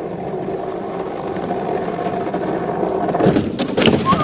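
Small wheels of a rolling cart loaded with plastic ball pit balls rumbling over pavement, a steady rolling noise that slowly grows louder. About three seconds in it breaks into a louder burst of clattering and scraping.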